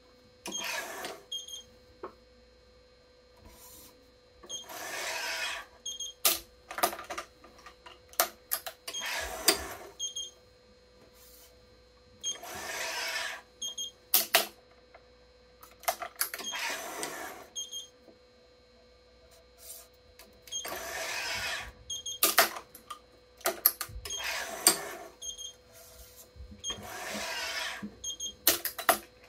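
Badminton string being drawn through a racket frame on an electronic stringing machine: a swish of string about every four seconds, with sharp clicks from the clamps and machine between them.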